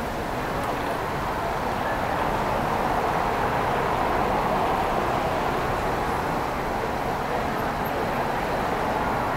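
Steady city street traffic noise: a continuous wash of passing cars, swelling slightly a couple of seconds in.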